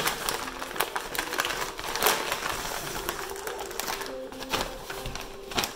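Gift packaging being handled and opened, with irregular rustling, crinkling and crackling and a brief louder tear-like burst about two seconds in.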